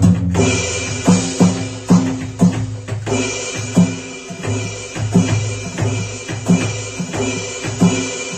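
NUX DM-7X electronic drum kit played in a steady groove through its module's stock, unedited drum sounds: kick and snare hits about twice a second, with cymbal crashes just after the start and again about three seconds in.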